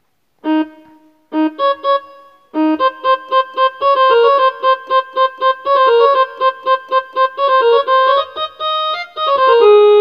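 Casio CTK-2550 electronic keyboard played on its violin tone: a few single notes, then a quick melody of short notes at about three or four a second, ending on one held note.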